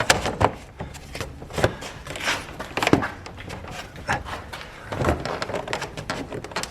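Irregular plastic clicks, knocks and rubbing as the headlight housing's rear cover is pressed back into place.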